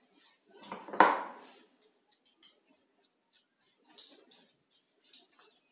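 Kitchen handling sounds as mashed-potato stuffing is scooped and placed onto rolled-out paratha dough: a knock about a second in, then light, scattered clicks and scrapes.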